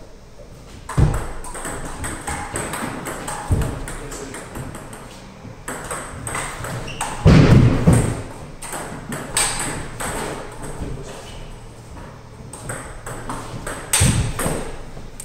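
Table-tennis ball clicking back and forth off rubber bats and the table in quick rallies. A few low thuds sound among the clicks, the loudest about halfway through.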